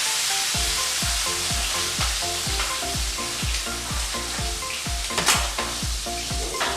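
Chicken frying in hot grease in a pan, giving a steady, loud sizzle with a sharp pop about five seconds in. Background music with a beat and sliding bass notes plays underneath.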